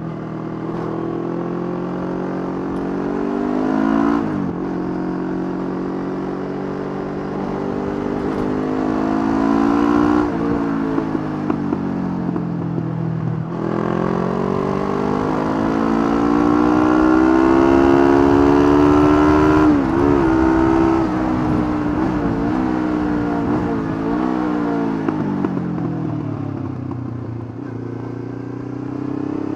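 Honda CB500 motorcycle engine heard from the rider's seat, pulling up through the gears. Its pitch climbs, drops sharply at each shift, wavers as the throttle is worked through bends, falls away on a long roll-off and rises again near the end.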